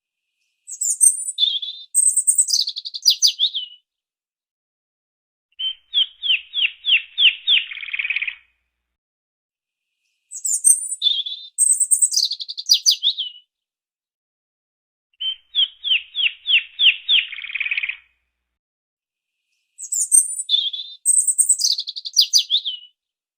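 Songbird singing in repeated phrases: a high phrase of chirps sliding down in pitch, then after a pause a lower run of about eight quick, evenly spaced notes. The pair of phrases comes round three times, about every nine to ten seconds, with silence in between.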